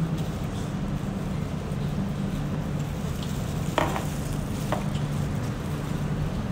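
Steady restaurant background noise with a low hum, and two short clicks a little past halfway, the first the louder.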